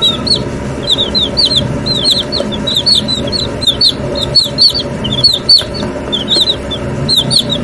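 A brood of week-old White Leghorn chicks peeping nonstop: many short, high, overlapping chirps, several a second.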